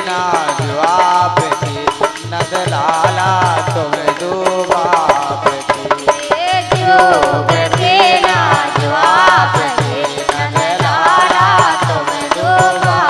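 Bundeli folk devotional tambura bhajan music: a wavering melody over a steady, evenly repeating hand-drum beat with rattling percussion.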